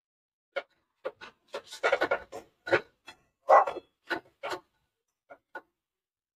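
Steel spatula stirring and scraping crumbled soya keema with peas around a kadai: a dozen or so short, irregular scrapes, the loudest about three and a half seconds in.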